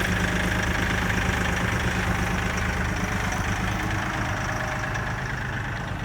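Diesel engine of a Kioti CK4010SE compact tractor running steadily, growing slowly quieter toward the end.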